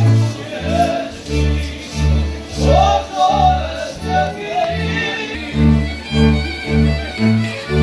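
Music: a fiddle melody over a bass line of short, evenly spaced notes.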